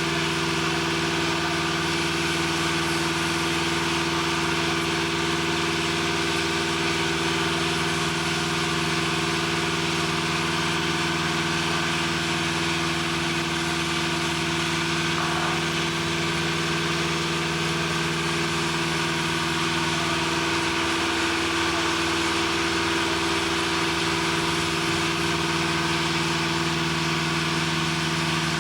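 Steady, unchanging machinery drone with several constant hum tones, like heavy equipment running at idle.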